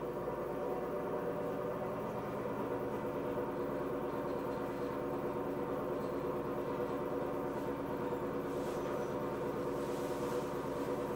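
Steady, many-toned hum of an electric commuter train's onboard machinery while the train stands at a stop.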